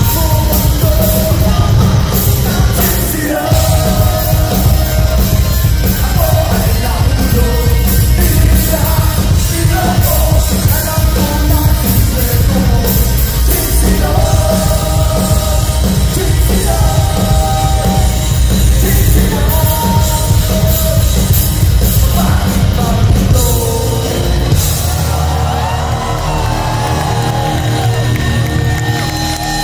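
A rock band playing live, the lead singer singing and yelling over distorted electric guitars, bass and drums. About 24 seconds in the drums and bass drop back.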